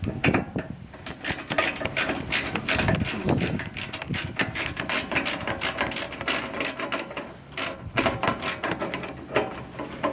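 Hand socket ratchet clicking in quick back-and-forth strokes while turning screws, with a couple of short pauses.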